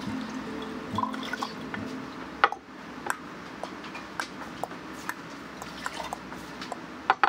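Water dripping and trickling as it is poured from a small glass cup into a glass teapot. After that comes a sharp clink about two and a half seconds in, a run of light taps and clicks as the glass lid and glassware are handled, and another sharp clink near the end.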